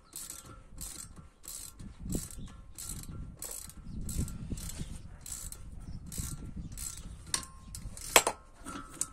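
Ratchet wrench clicking in short bursts, about two a second, as a MacPherson strut's top nut is undone. A few sharp knocks come near the end, one much louder than the rest.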